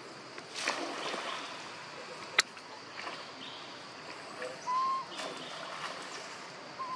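Outdoor forest background: a steady high drone with scattered rustling and scrabbling as the macaques shift on the log. A single sharp click comes about two and a half seconds in. A short call held at one steady pitch, the loudest sound, comes near five seconds in, with a fainter one near the end.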